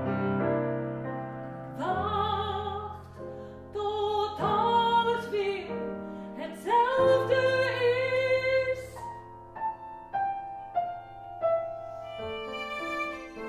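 A woman singing a classical song in an operatic voice with vibrato, accompanied by a bowed cello holding low notes. Her phrases swell in about two seconds in, again at four and a half, and again at seven; the notes become shorter and lower near the end.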